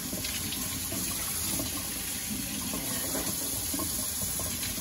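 Kitchen faucet running steadily into a stainless steel sink, the stream splashing over hands being rubbed and rinsed under it.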